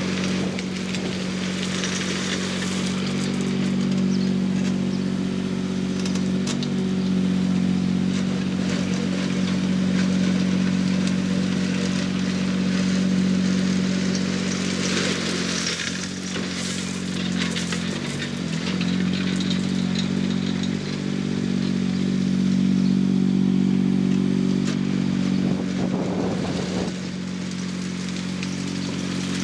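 Mini digger's small diesel engine running steadily while its bucket drags a steel rake frame through loose stone, with crunching and scraping of the gravel over it. The engine note wavers twice, about halfway through and near the end.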